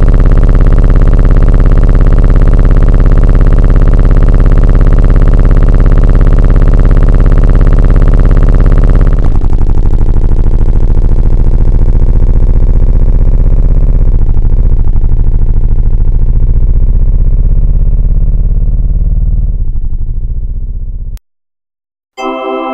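A loud engine running steadily. About nine seconds in its tone thins, it wavers in pitch twice, and then it stops abruptly.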